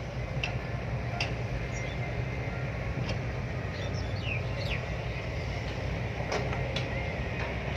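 Heavy diesel engine idling steadily, a low rumble, with a few brief high chirps over it.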